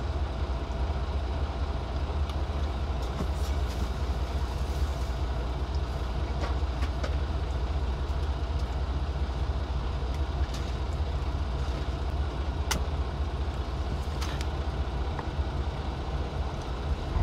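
Steady low rumble of an idling semi-truck diesel engine, heard from inside the cab, with a few faint clicks.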